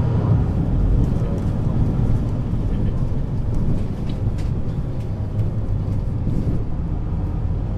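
Mercedes-Benz Citaro C2 city bus's diesel engine running steadily with a low drone as the bus drives along, easing off a little about halfway through.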